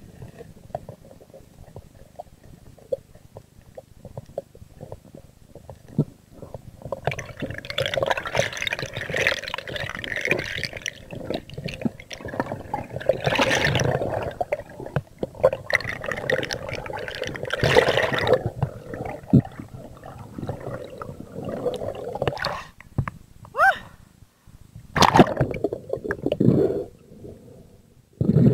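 Underwater camera audio as a freediver swims up to the surface. Water first crackles faintly, then rushes and bubbles loudly for about fifteen seconds, with a few short loud bursts of water noise near the end.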